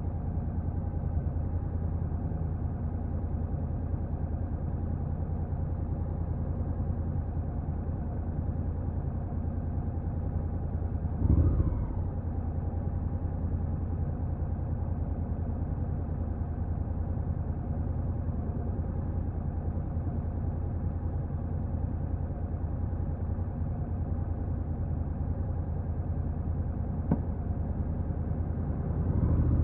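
Stock Honda NC750X's parallel-twin engine running steadily. Its revs briefly rise and swell about eleven seconds in and again near the end.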